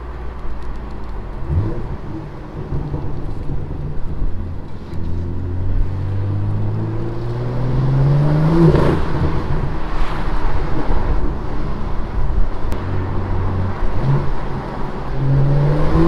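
BMW M2 F87's N55 turbocharged straight-six through an aftermarket modified exhaust, in Sport Plus, heard from inside the car with the windows down. The engine note climbs under acceleration from about five seconds in, drops at a gear change about nine seconds in, runs steady, then climbs again near the end.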